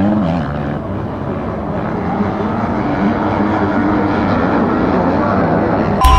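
Motocross bike engine running hard on the track, its pitch rising and falling with the throttle.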